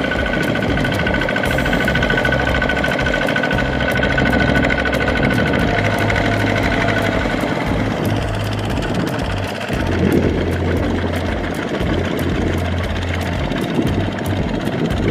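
Kubota hand tractor's single-cylinder diesel engine running steadily under load, with a fast knocking beat, as its steel cage wheels churn through a flooded rice paddy.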